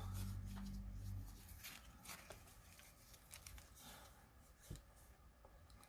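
Faint rustling and light ticks of trading cards and pack wrappers being handled. A low steady hum runs through the first second and a half.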